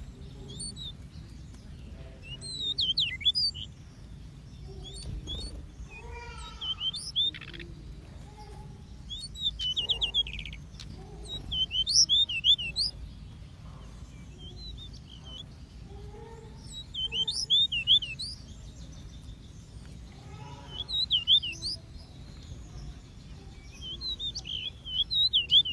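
Small aviary birds chirping and twittering in quick high-pitched clusters every few seconds, over a steady low background rumble.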